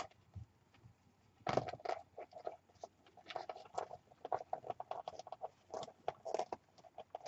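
Hands handling a paper journal and a length of tape, making irregular light rustles and small taps that begin about a second and a half in and carry on in a busy, uneven run.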